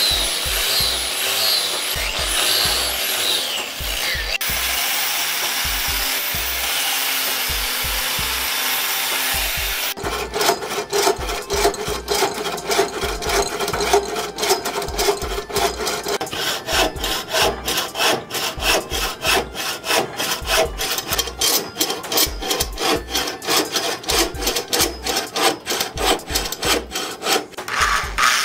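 An angle grinder with a sanding disc runs against a wooden axe handle with a wavering whine. About ten seconds in, a hand bow saw takes over, cutting the wood in rapid, even back-and-forth strokes. An electric drill starts boring into the handle right at the end.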